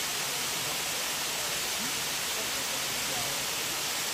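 Waterfall pouring over rock into a plunge pool: a steady, even rush of water.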